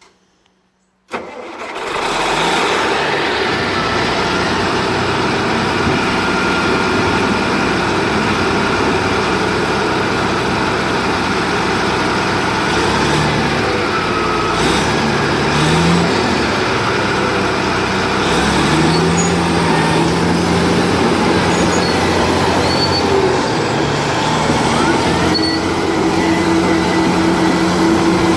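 Caterpillar D8R bulldozer's six-cylinder diesel engine starting about a second in, then running steadily and loudly, its pitch shifting a little now and then.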